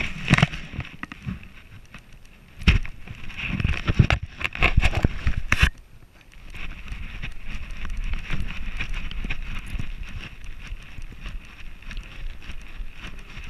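Knocks and rustling from a harness-mounted camera jostling on a walking dog's back, with several sharp bumps in the first half, then a steadier rumble of wind and movement on the microphone.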